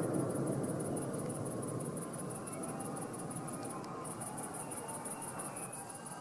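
Crickets chirping in a fast, even pulse, with a brief pause about four seconds in, over a low rumble that fades away.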